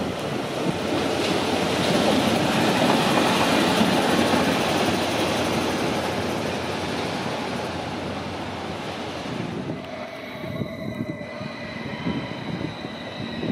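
Rhaetian Railway Gm 3/3 diesel shunting locomotive running along the yard tracks, its engine and wheels loudest a few seconds in and then easing off. About ten seconds in this gives way to the steady, high-toned whine of a standing ABe 8/12 electric train.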